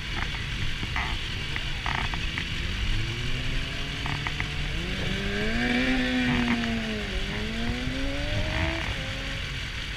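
Motorcycle engines: a steady idling rumble, with an engine note that rises over a few seconds, dips, rises again and cuts off about nine seconds in.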